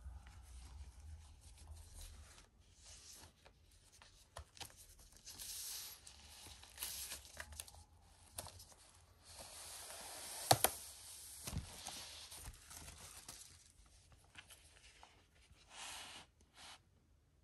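Packaging being torn open and crinkled by hand while unboxing a vinyl double LP, in irregular scratchy bursts, with a sharp snap about ten and a half seconds in and a dull thump a second later.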